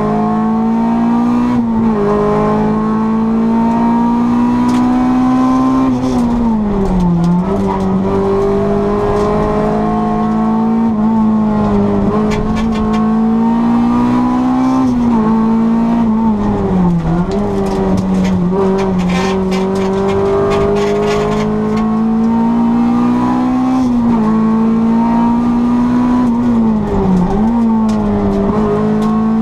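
Honda Civic 1600 four-cylinder engine run hard on a race track, held at high revs throughout. Its pitch climbs slowly and drops sharply every few seconds.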